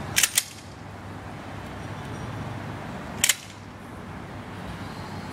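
Pump-action shotgun's slide clacking open and shut as the gun is cycled one-handed, the forend thrown back and forward by swinging the gun down and up. There is a quick pair of metallic clacks about a quarter second in and another pair about three seconds in.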